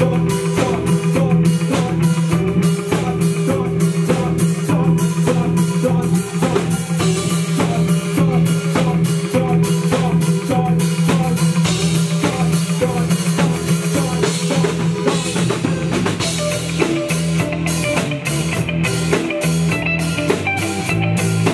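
Live rock band playing: a drum kit keeping a steady beat under electric guitar and bass guitar.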